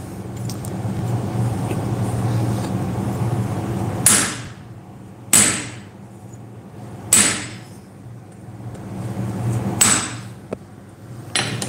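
A hammer strikes a handled chisel set on an iron bar on the anvil five times, spaced a second or more apart, each blow a sharp metallic clang. The chisel is scoring a line down the middle of the bar to split it. A steady low hum runs underneath.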